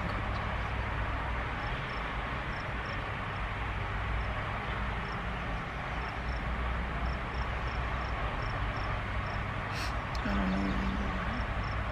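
Steady low hum and hiss inside a parked car, with faint, short, high chirps repeating through it, often in pairs. A single click comes about ten seconds in, followed by a brief low voiced sound.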